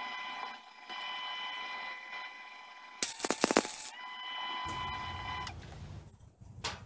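Lincoln MIG welder tack-welding a steel body-mount bracket: about a second of loud crackling arc roughly three seconds in. It is heard over a steady high-pitched whine that stops shortly after. A low rumble comes in later.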